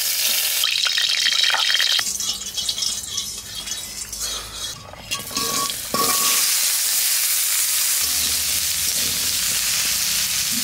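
Oil sizzling in a wok; about six seconds in, diced potatoes are tipped into the hot oil and fry with a steady sizzle while being stirred with a metal spatula.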